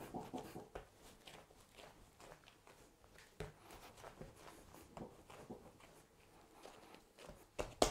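Hands kneading and moulding a ball of soft fruited bun dough on a worktop: faint soft pats and rubbing, with a couple of sharper knocks just before the end.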